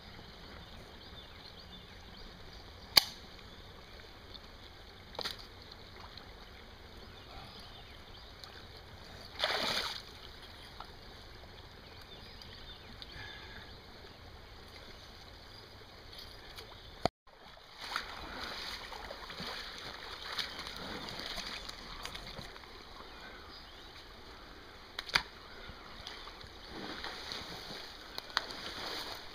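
A man working in shallow creek water: a few sharp clicks, the loudest about three seconds in, a brief splash about ten seconds in, and low water sloshing in between.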